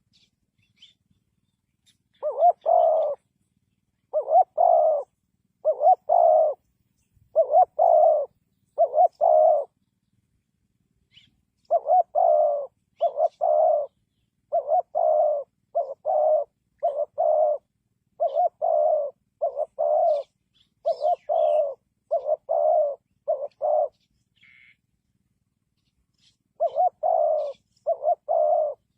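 Spotted dove cooing: a long run of low, two-part coos repeated about once every second or so, broken by a short pause about a third of the way in and another near the end.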